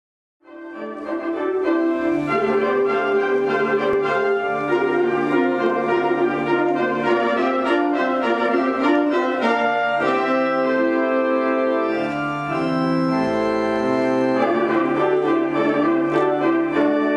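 Organ playing a run of sustained, changing chords, coming in about half a second in.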